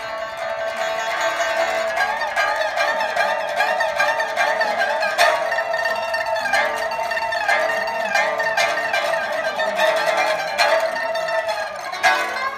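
Pipa being played: plucked notes that waver and bend in pitch, with a few sharper plucked strokes standing out.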